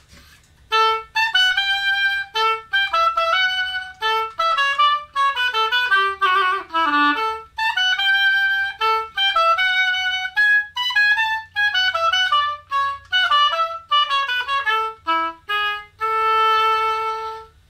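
Solo oboe played unaccompanied: a melody of short phrases and quick runs separated by brief gaps, ending on a long held note.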